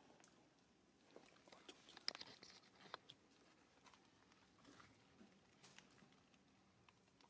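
Near silence, with faint scattered clicks and a brief cluster of small ticks and rustling about two seconds in.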